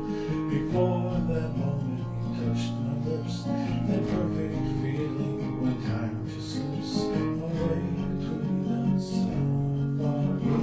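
Music of a strummed acoustic guitar playing held chords.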